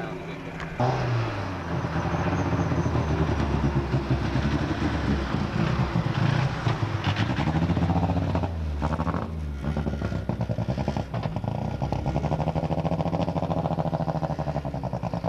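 Toyota rally car's engine revving and pulling away, its pitch rising and falling several times.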